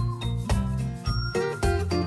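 Background music: plucked, guitar-like notes and bright chiming tones over a steady bass beat.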